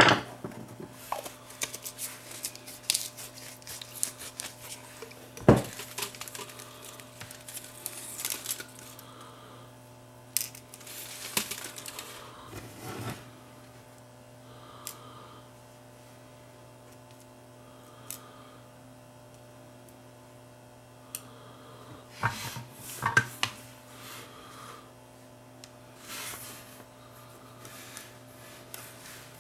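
Scattered small clicks, taps and scrapes of hand-soldering surface-mount parts onto a circuit board, as tools and the soldering iron touch the board. The sharpest clacks come right at the start and about five seconds in, over a steady low electrical hum.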